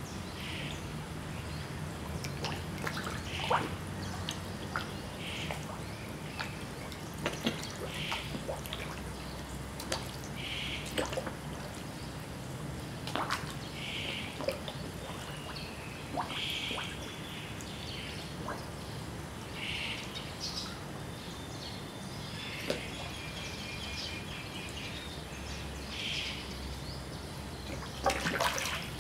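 Koi feeding on floating pellets at the pond surface, with scattered sharp slurps, smacks and small splashes. A steady low hum runs beneath, and short chirps repeat every few seconds.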